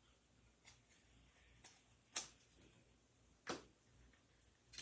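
Near silence with a few faint, brief rustles and taps as hands tie a ribbon bow and handle the paper card and ribbon spool.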